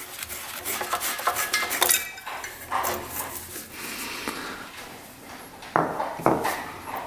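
Small metal clicks and scrapes of the 1977 Suzuki RM125's carburettor being handled with gloved hands as its top cap is unscrewed and the throttle slide with its needle is drawn out. Two sharper clicks come near the end.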